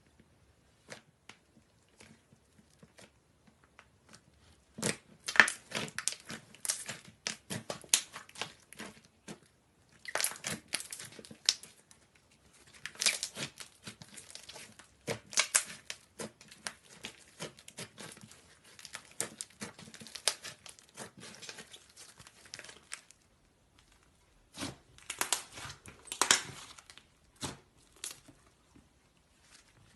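Slime being worked by hand, giving bursts of sticky crackling and popping with short pauses between. After a few scattered clicks, it starts about five seconds in and thins to a few clicks near the end.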